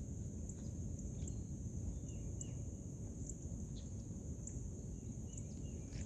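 Outdoor ambience: a steady high insect trill pulsing with faint ticks, with a few short bird chirps about two seconds in and again near the end, over a low steady rumble.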